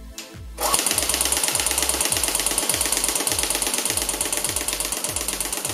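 Cybergun FN Herstal P90 airsoft electric gun firing one long full-auto burst, a fast even rattle of shots. It starts about half a second in and keeps going.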